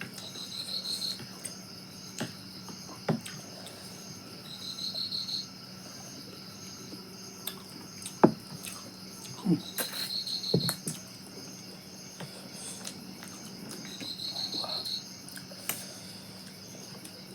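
Crickets and other insects chirring steadily, with a short trill repeating every four to five seconds. Scattered sharp clicks and knocks sound over them, the loudest about eight seconds in.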